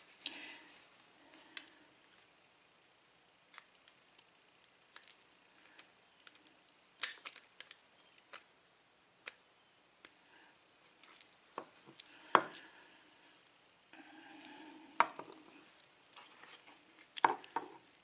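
Small metal clicks and taps from a pin-tumbler lock cylinder being worked by hand, as a tool is used to try to get the retaining clip off the back of the plug. The clicks are irregular, with a few sharper ones about seven seconds in and about twelve seconds in.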